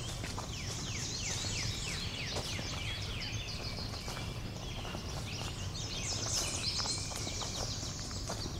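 A springtime chorus of several songbirds chirping together, many quick falling notes overlapping one another, over a low steady background rumble.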